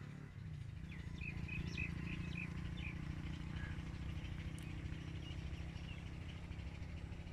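A small bird chirping a quick run of about six short notes a second or so in, over a steady low hum.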